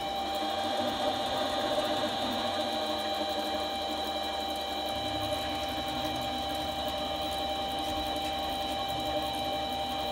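Chinese mini metal lathe running, its spindle turning a four-jaw chuck at a steady speed. A steady motor hum sits under a constant high gear whine.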